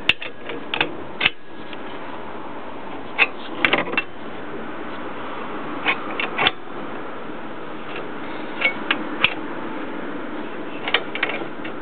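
Irregular sharp metallic clicks and clanks of hand tools working on metal, coming singly and in small clusters every second or two over a steady hiss.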